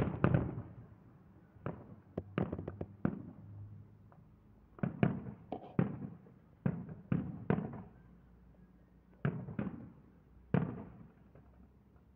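Aerial fireworks shells bursting, a string of about a dozen sharp bangs, each with an echoing tail, the loudest right at the start.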